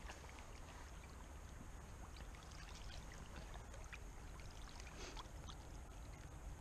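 Shallow river water flowing and lapping around wading legs, with small splashes and drips as a hand dips into the water, the strongest splash about five seconds in.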